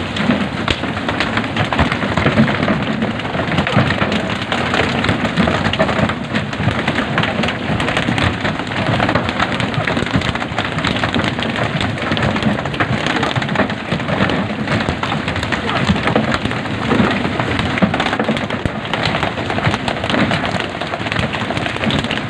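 Dense, steady patter of slaps and taps from freshly caught fish landing and flapping on a wooden boat deck during pole-and-line fishing, with splashing water.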